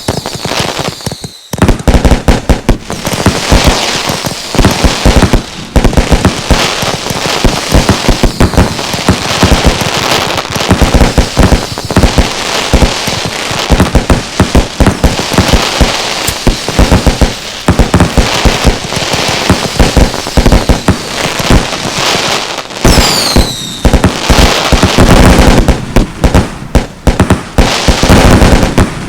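Fireworks going off in rapid, almost continuous volleys of loud cracks and bangs. About two-thirds of the way through, a few whistles fall in pitch among the bangs.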